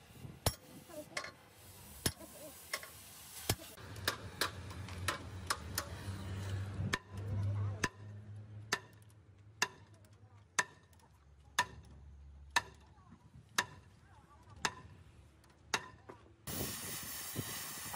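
Sledgehammer blows on a heavy truck's rear brake drum and hub, knocking the stuck drum loose, about one strike a second. Near the end a cutting torch starts with a loud steady hiss.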